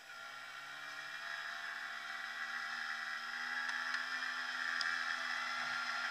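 Honda NSR 50's two-stroke single-cylinder engine accelerating, its pitch climbing for about three seconds and then holding steady as it grows louder.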